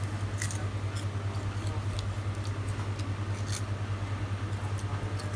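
A steady low hum from a motor or engine running without change, with faint crackles of a plastic bag being handled over it.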